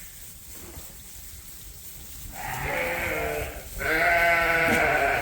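Ewes bleating at feeding time, calling for their feed: one shorter bleat about two seconds in, then a louder, longer one near the end.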